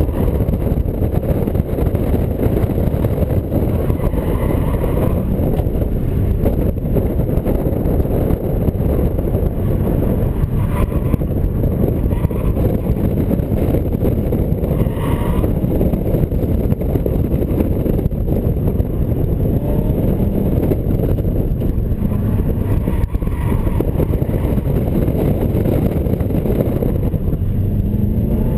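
2003 Subaru WRX's turbocharged flat-four engine running hard, heard from inside the cabin together with heavy road noise; the revs rise near the end.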